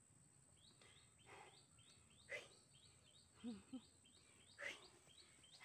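Faint, quick, high bird chirps repeating two to three times a second, with a few short, louder noises in between.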